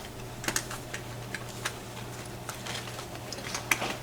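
Irregular light metallic clicks and taps of lockpicking tension tools being handled and tried against a lock's keyway, the sharpest click near the end.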